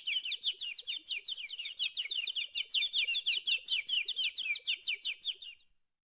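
Bird-like chirping: a fast, even run of short downward-sweeping chirps, about seven a second, that cuts off abruptly near the end.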